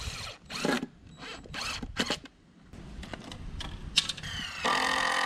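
Cordless DeWalt impact driver driving screws into 2x4 lumber. It gives a few short bursts, then near the end the motor whines up in pitch and runs steadily for about a second.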